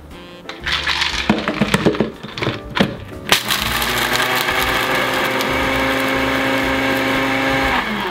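Personal bullet-style blender crushing hard peppermint candy canes: for the first few seconds the candy cracks and clatters in the cup, then about three seconds in the motor runs steadily, grinding the candy to powder, and it cuts off near the end and spins down.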